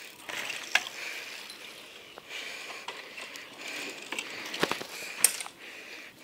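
Bicycle rear-hub freewheel ticking in spells as dirt-jump bikes coast past, with a few sharp knocks.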